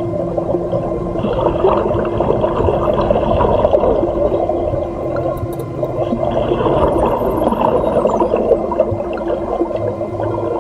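Wild dolphins heard underwater: a dense crackle of rapid clicks over gurgling water, with a faint high falling whistle about seven seconds in.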